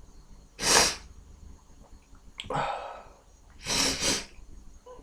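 A man with a head cold sneezing, deliberately induced: a sharp sneeze just under a second in, an audible breath, then a second sneeze about four seconds in.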